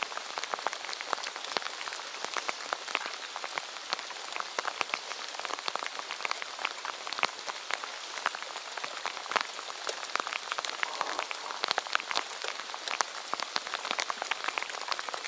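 Heavy rain falling on a lake's water surface: a steady hiss with many sharp raindrop ticks throughout.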